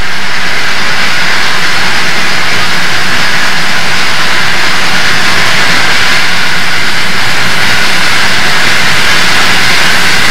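Loud, steady running noise of a Southern Pacific AC-11 cab forward steam locomotive climbing grade, heard from the front of the engine: exhaust and wheel-on-rail noise blend into one even rush.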